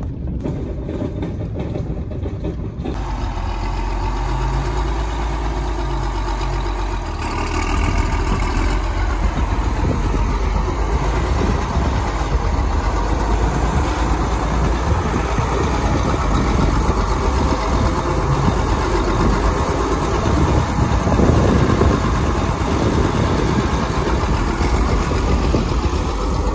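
For the first few seconds a vehicle drives along a dirt track. Then a John Deere tractor's engine runs steadily as its front loader lifts a round hay bale and sets it onto a small trailer.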